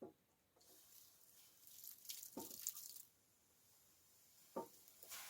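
Water pouring and splashing for about two seconds, faint, as the welded steel seams of a wood stove are tested for leaks. A few soft knocks come before, during and after it.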